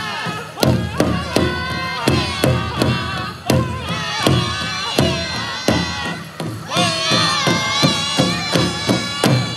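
Powwow drum group singing a contest song for the chicken dance: a steady drumbeat on a large powwow drum, about two and a half beats a second, under several men singing together. A new high-pitched phrase starts near the last third.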